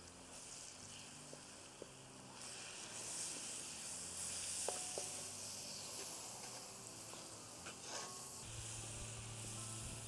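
Butter melting and sizzling in a hot cast-iron wok with fried shallots, garlic and black pepper, stirred with a wooden spoon. The sizzle swells about two seconds in and stays steady.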